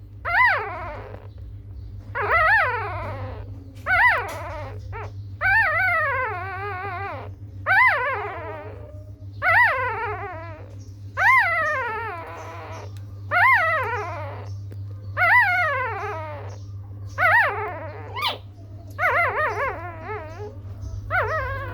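Puppy whining and crying: a string of high, pitched whimpers, each rising then falling, about one every two seconds. A steady low hum runs underneath.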